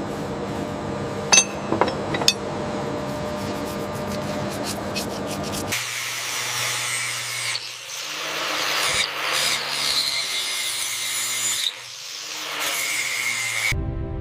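Workshop tool noise: a steady machine hum with a few sharp clicks, then from about six seconds in a harsh, scraping rubbing noise with brief breaks, like abrasive work on metal.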